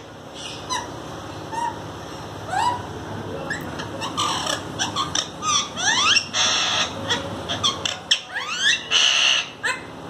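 A group of caged green parakeets calling: a few single calls at first, then bursts of sharp rising squawks and harsh screeches that come thick and fast through the second half.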